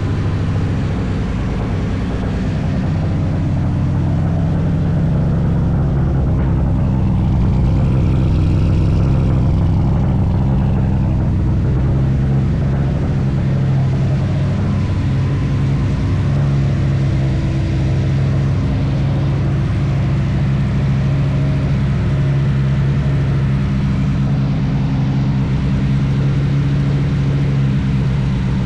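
Turbocharged Nissan SR20DET engine in a B13 Sentra idling steadily through its newly welded custom exhaust.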